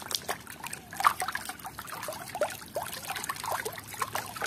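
Water splashing in a plastic tub as a hand swishes and scrubs a muddy toy underwater: an irregular run of small splashes and plops, loudest about a second in.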